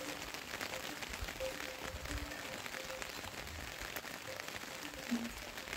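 Light rain pattering steadily on leaves and grass, as a dense, even stream of fine ticks.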